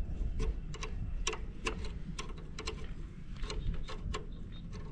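Sharp metal clicks and ticks of a hand tool working the fastener of the DB killer (baffle) inside a Rajdoot motorcycle's silencer as it is refitted, irregular, about two or three a second.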